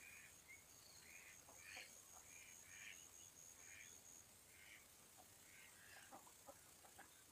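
Domestic ducks quacking, faint and a little distant, in a run of short calls about twice a second that thins out after about five seconds.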